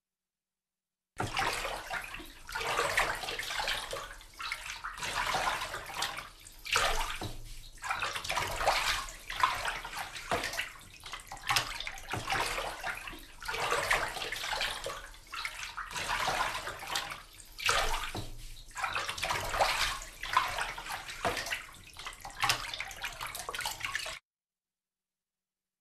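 Rushing, sloshing water that swells and eases every second or two, starting about a second in and cutting off suddenly near the end.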